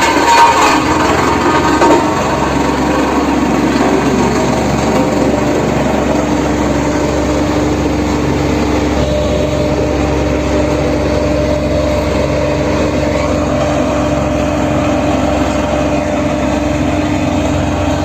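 Road roller (vibratory compactor) engine running steadily with a low rumble and a steady hum.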